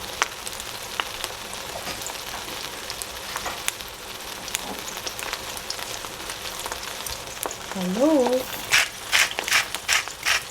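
Eggplant frying in hot oil, a steady sizzle with scattered crackles. Near the end comes a run of louder spattering crackles.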